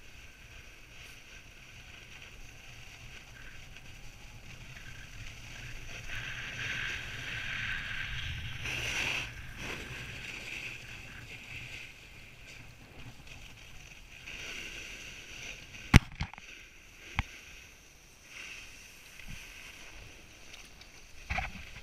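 Skis running and scraping over packed, groomed snow, a steady hiss that swells about six to ten seconds in. Two sharp clacks stand out about sixteen and seventeen seconds in, the loudest sounds here.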